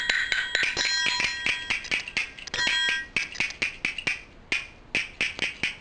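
Percussion ostinato: a run of sharp taps and strikes over ringing bell-like tones. About three seconds in the ringing stops and the taps thin out and fade.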